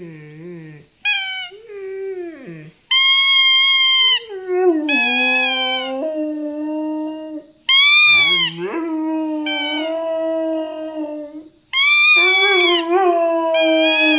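A Siberian husky howling along with a squeaky toy. A few loud, high squeaks of about a second each alternate with the dog's long, lower, wavering howls, which run for several seconds at a time.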